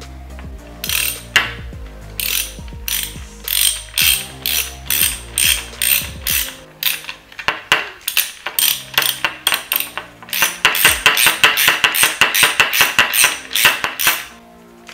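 Ratchet clicking in short runs as it drives the screws that hold an electric window motor onto a replacement window regulator mechanism, the clicks coming faster, several a second, in a long run past the middle.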